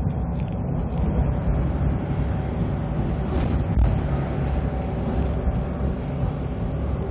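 Volvo B340M bus's DH12E 340 hp diesel engine running, a steady low rumble.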